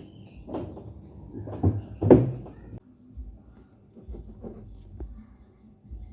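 Parts of an LG washing machine being handled and fitted: a few sharp knocks, the loudest about two seconds in, then lighter scattered clicks.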